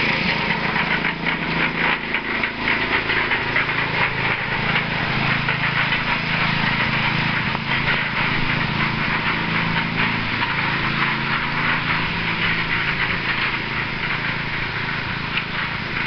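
Engine-driven cement mixer running steadily, a low engine hum under a continuous gritty rattle as the mix turns.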